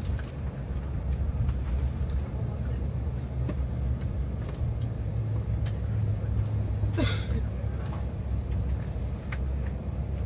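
Steady low rumble inside the Airbus A380's cabin as the aircraft rolls on the ground after landing, with a few faint clicks and a short rattle about seven seconds in.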